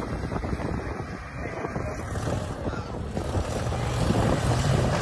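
Jeep Wrangler driving off the sand into a flooded water hole, its engine note growing louder toward the end as it ploughs through the water and throws up spray. Wind buffets the microphone throughout.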